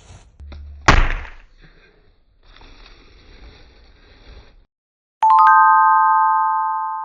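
A soft knock about a second in, then a bright chime about five seconds in: several steady tones ring together and slowly fade.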